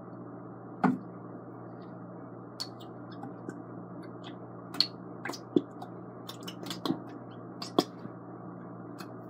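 Plastic glue bottle squeezed by hand: a dozen or so scattered short clicks and crackles, over a steady low hum.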